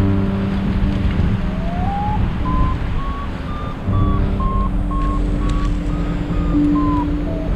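Paragliding variometer beeping: short beeps whose pitch climbs over the first couple of seconds and then stays high and fairly even, the vario's signal that the glider is climbing in lift. Steady wind noise on the microphone runs beneath the beeps.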